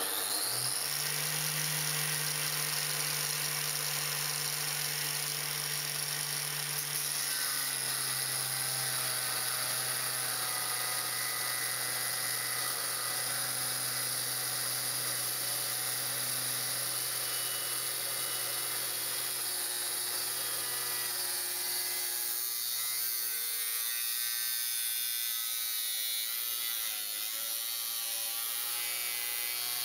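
Angle grinder in a cut-off stand spinning up, then cutting through a steel bar with a 1.2 mm abrasive cut-off disc. The motor's pitch drops a little as the disc takes the load about seven seconds in, then runs steadily through the cut.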